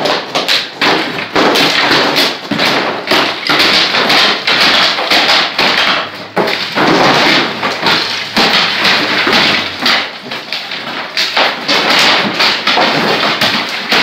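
Rapid, repeated hammer blows breaking up masonry, a dense run of hard knocks and thumps.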